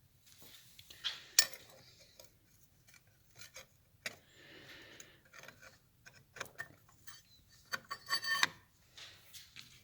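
Motorcycle clutch plates, steel and friction, clinking and scraping as they are worked onto the splined clutch hub. A scattering of sharp clicks, a short sliding scrape midway, and a quick run of clinks with a brief metallic ring near the end.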